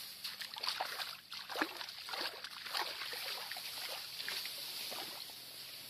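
Someone wading through a flooded rice paddy among tall rice plants: irregular sloshing and splashing of water, with rustling of the stalks.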